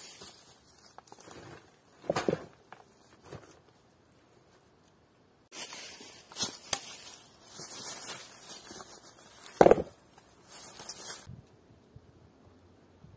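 Intermittent rustling and crackling, with two sharp knocks: one about two seconds in, and the loudest about three-quarters of the way through.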